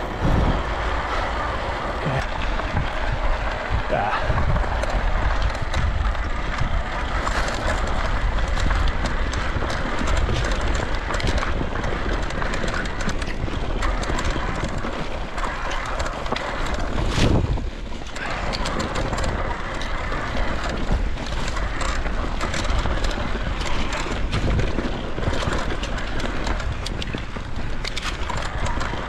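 Electric mountain bike being ridden over a rough dirt trail: continuous tyre and trail noise with frequent rattles and knocks from the bike over bumps, and wind buffeting the microphone.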